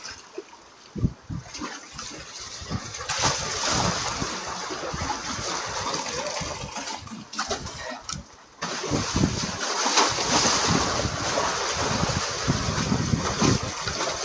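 Seawater washing and splashing among concrete breakwater tetrapods, coming in surges. It is quieter at first, swells about three seconds in, and has a short lull a little past halfway.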